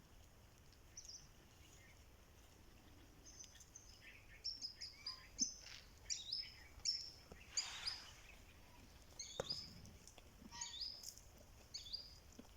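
Small birds chirping: many short, high, quick notes, several falling in pitch, coming thick from about three seconds in, over a faint steady background noise.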